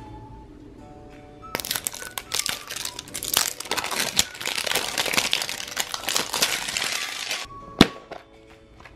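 Clear plastic wrapping crinkling loudly as it is torn and peeled off a large plastic surprise egg, over soft background music. A single sharp plastic snap near the end as the egg is opened.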